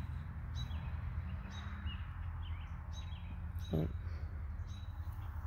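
Night-time outdoor ambience: short, high chirps recurring every second or so over a steady low hum, with one brief louder sound near the end.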